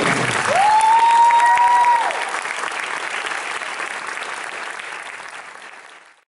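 Audience applauding in a hall. About half a second in, a single long high note glides up and is held over the clapping for about a second and a half. The applause then dies away and cuts off suddenly near the end.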